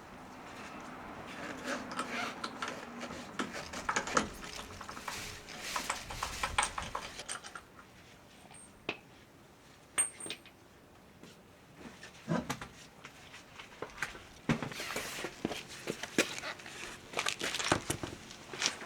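Metal clinking and knocking from handling tools and wheel parts during a tyre change, in irregular clusters of sharp clicks. Busy stretches near the start and in the last few seconds frame a sparser middle.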